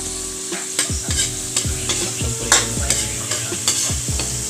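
Metal ladle scraping and stirring chopped onions around a wok, in repeated strokes two or three times a second, over a steady sizzle of onions sautéing in hot oil.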